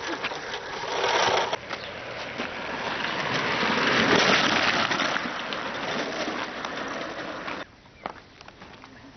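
Wheels of a small homemade kart rolling and crunching over gravel and asphalt, with no engine note. The noise swells as the kart passes close, then fades and stops suddenly near the end.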